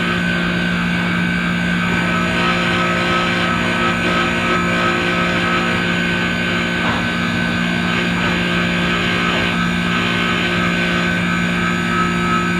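Manitowoc ice machine running: its compressor and fan give a steady hum with a few held tones over a rushing noise, unchanging throughout.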